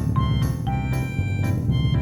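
Cheerful children's background music: a bright, bouncy tune with short plinking notes over a steady, busy low accompaniment.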